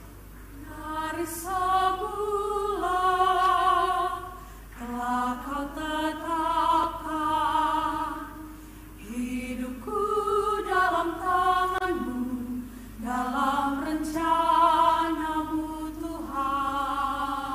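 Mixed choir of men's and women's voices singing a slow hymn in harmony, a cappella, in about five sustained phrases with short breaths between them.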